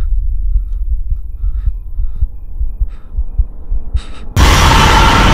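Horror-film sound design: a low, throbbing heartbeat-like pulse, then a little over four seconds in a sudden loud burst of harsh noise cuts in as a jump-scare sting.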